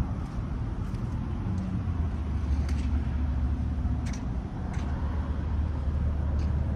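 Low, steady rumble of a motor vehicle running in street traffic, growing stronger about two seconds in, with a few faint ticks.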